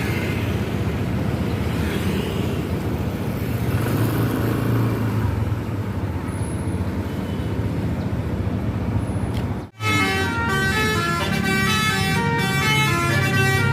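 Tour bus running with steady engine and road noise; after an abrupt cut about ten seconds in, a Basuri telolet multi-tone air horn plays a quick melody of short stepping notes.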